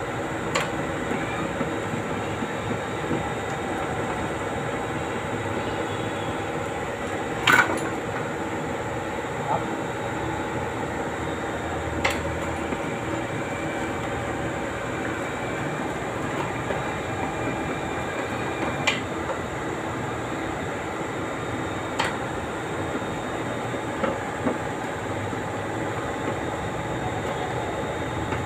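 Eurocrane ECH2 electric chain hoist running under pendant control, lowering its hook on the load chain with a steady motor hum. Sharp clicks come every few seconds, loudest about a third of the way in.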